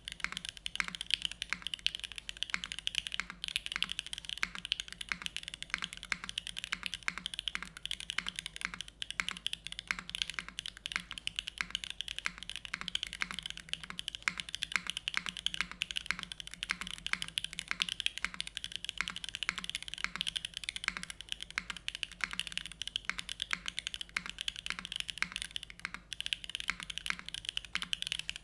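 Steady, fast typing on an ai03 Vega 65% gasket-mount mechanical keyboard with lubed Gateron KS-3X1 Milky Yellow linear switches, an aluminium plate and GMK keycaps: a dense, unbroken run of keystroke clicks.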